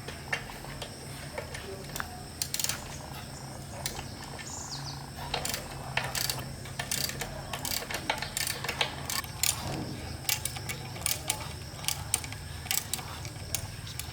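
Irregular sharp metallic clicks and taps of hand tools working on diesel engine parts, over a steady low hum.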